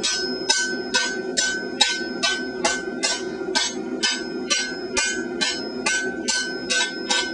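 Hand hammer striking hot mild steel angle iron on an anvil at a steady pace of a little over two blows a second, each blow ringing the anvil, as the angle is folded into a teardrop-shaped stem.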